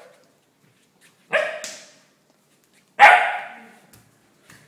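Weimaraner puppy barking twice, about a second and a half apart.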